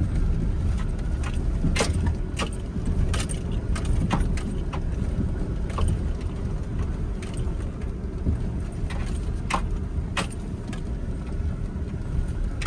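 4x4 pickup truck driving over a rocky dirt trail, heard from inside the cab: a steady low rumble of engine and tyres, broken by scattered sharp clicks and rattles as the truck jolts over stones.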